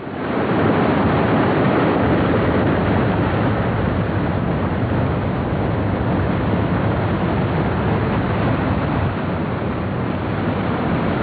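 Whitewater of a boulder-strewn mountain river pouring over a rocky drop: a steady, dense rushing noise.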